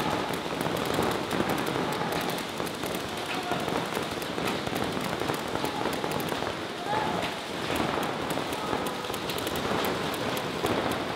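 Rapid, overlapping fire from several paintball markers, a dense crackle of shots with paintballs smacking into the inflatable bunkers and turf.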